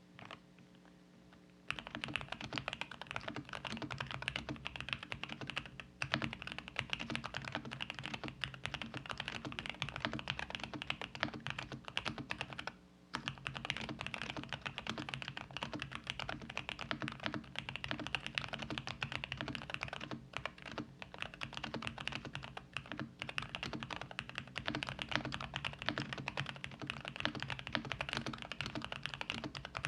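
GMK67 mechanical keyboard with JWICK Black V2 linear switches being typed on rapidly: a dense clatter of keystrokes that starts about two seconds in and pauses briefly near the middle.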